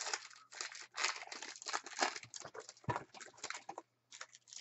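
Foil trading-card pack wrapper crinkling and crackling as it is handled and torn open, with a sharper crack about three seconds in. It stops just before the end.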